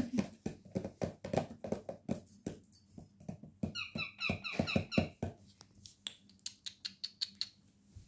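Rose-ringed parakeets chattering: a busy run of rapid clicks and short squeaky notes, with a quick string of high chirps about four seconds in, thinning out over the last couple of seconds.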